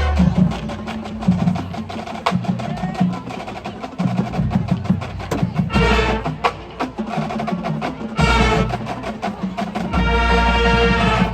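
Marching band music: a percussion passage of rapid, sharp strokes like drums and wood block, broken by full-band chords about halfway through and again near the end.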